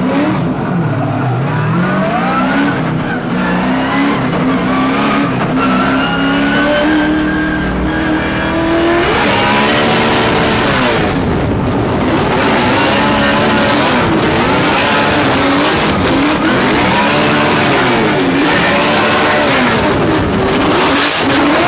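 LS-swapped V8 of a 1000 hp BMW E92 M3 drift car, heard from inside the cabin. For the first nine seconds or so the engine pulls up steadily in pitch under acceleration. After that it rises and falls over and over as the throttle is worked through a drift, with tyre noise underneath.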